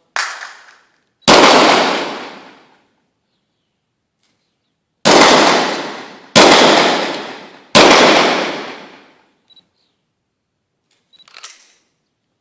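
Revolver firing black-powder rounds: five shots, each ringing out with a long echoing tail. A quieter shot comes right at the start, then a loud one, a pause of nearly four seconds, and three loud shots about a second and a half apart.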